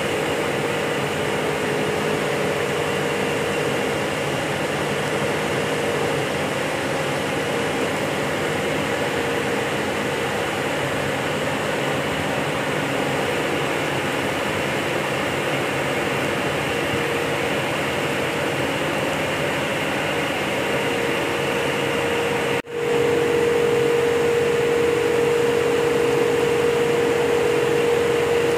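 Steady mechanical hum and hiss of aquarium aeration equipment running. It drops out for a moment about three quarters of the way through, then carries on with the hum slightly stronger.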